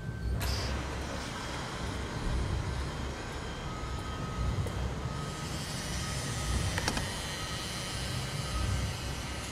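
A steady low rumble with a rushing hiss over it. The hiss comes in sharply about half a second in, and a single sharp click sounds near seven seconds.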